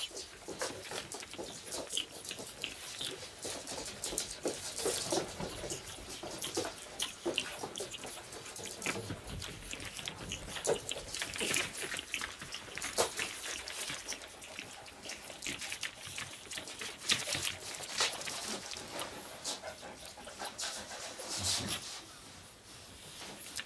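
Pug puppies scrabbling about on a plush dog bed and spread newspaper: many small, scattered rustles and scratches.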